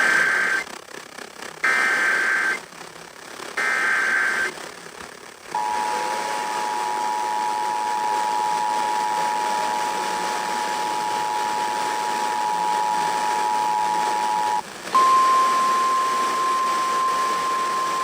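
Emergency Alert System alert tones announcing a severe thunderstorm warning. Three short screeching bursts of SAME digital header data come first. The steady two-tone EAS attention signal follows for about nine seconds, then after a brief gap a single slightly higher steady tone, the weather service's 1050 Hz warning tone, sounds for the last few seconds.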